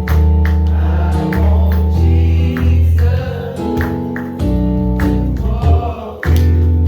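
Gospel church music: sustained organ-like chords over a strong bass, with a steady beat of drum or tambourine hits about twice a second, and singing.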